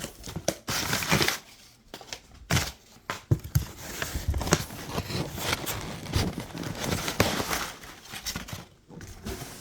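Packaging being handled and opened: irregular crinkling, rustling and tearing with sharp knocks and clicks, as a boxed hand vacuum is unpacked.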